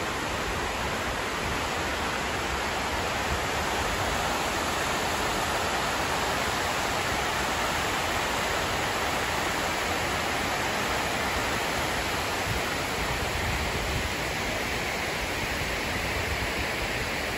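Steady rushing of water falling down the walls of the 9/11 Memorial reflecting pool, an artificial waterfall.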